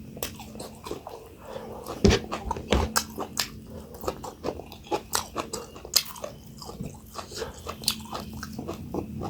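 Close-miked eating sounds: chewing and mouth smacking with many short wet clicks and a few louder crunches, several a second.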